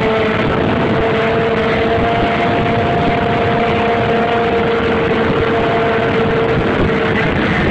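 Sport motorcycle engine held at steady high revs through a wheelie, its note climbing a little at first, over heavy wind and road noise.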